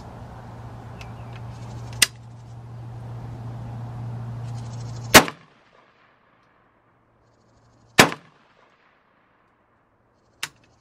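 Three loud semi-automatic rifle shots about three seconds apart, then a fainter shot near the end.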